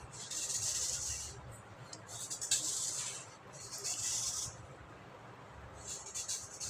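A tool carving through dry clay: three gritty scraping strokes, each about a second long, then a short crackle of crumbling near the end.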